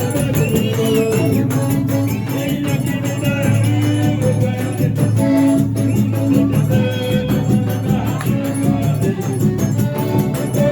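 Forró music playing with a steady beat.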